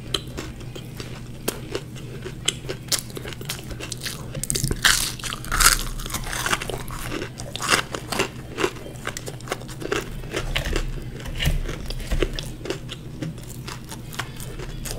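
Close-miked chewing of fried samosa: crisp pastry crust crunching and crackling between the teeth, with wet mouth sounds. The crunching is loudest and densest about five seconds in, with another burst a couple of seconds later.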